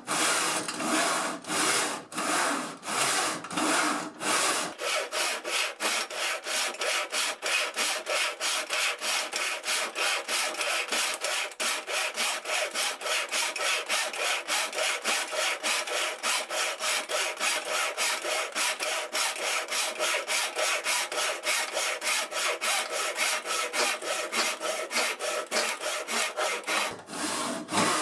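A 26-inch E. C. Atkins No. 1 mitre box saw, a freshly sharpened and set steel backsaw, cutting a wooden block in a mitre box with steady back-and-forth rasping strokes. The strokes quicken about five seconds in and slow again near the end.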